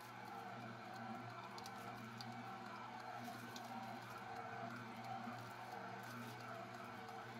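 Hurom slow juicer's motor running with a steady low hum as its auger presses citrus pulp.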